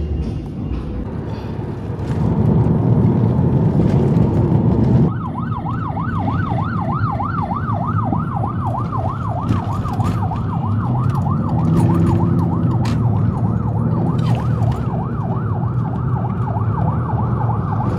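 Emergency van's siren yelping, a fast rising-and-falling wail about three times a second that starts suddenly about five seconds in, over low traffic and engine rumble heard from inside a car.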